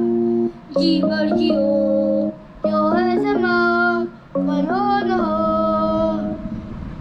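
Electronic keyboard playing held chords in short phrases, with a child singing along above it. The music drops out briefly three times between phrases.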